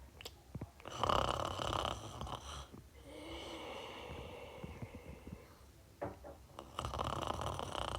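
Snoring: a loud snore about a second in, a quieter, longer one after it, and another loud snore near the end.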